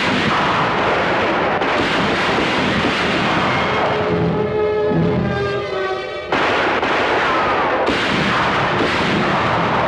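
Gunfire in a shootout, several sharp shots with long echoing noise, over dramatic orchestral score.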